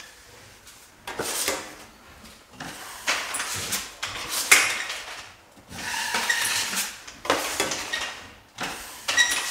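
Steel finishing trowel scraping across a drywall ceiling as it smooths joint compound over a butt joint, in about six long strokes of a second or so each. One sharper, louder scrape comes about four and a half seconds in.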